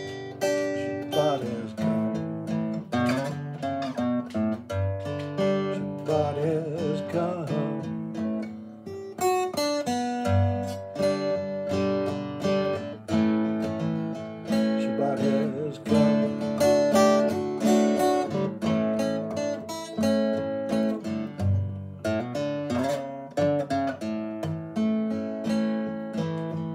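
Acoustic guitar strummed and picked in an instrumental passage between sung lines of a slow song.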